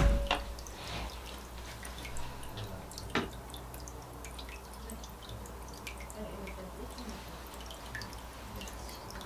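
Water dripping softly in a small indoor water fountain, a scatter of faint irregular drips over a low steady hum, with one sharper click about three seconds in.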